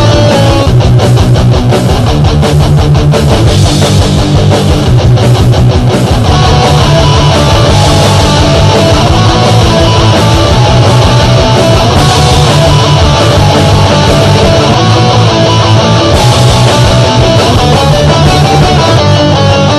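Loud guitar-driven punk rock backing track, made with the Punk-O-Matic online music maker.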